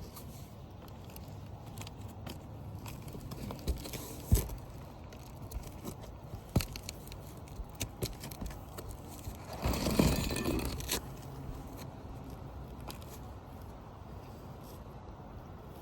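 Asphalt three-tab shingle being worked into place on a roof: scattered clicks and light scrapes of shingle and granules, with one louder scrape lasting about a second past the middle.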